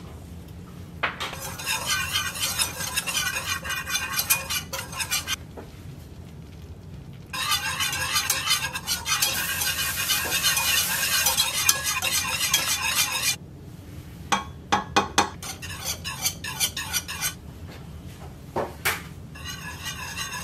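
Wire whisk beating fast against the side of a cooking pot while milk is whisked into a roux for a cheese sauce: a quick run of clinks in two long spells, the second louder. Near the end come a few separate taps, and then the whisking starts again.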